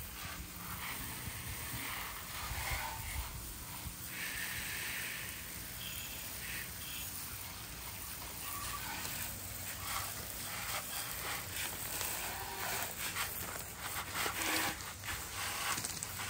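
Garden hose spray nozzle rinsing a motorcycle, a steady hiss of water spattering on the bike, with short animal calls in the background.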